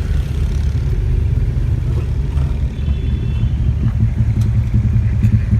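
Steady, loud low rumble of a road vehicle's engine and traffic.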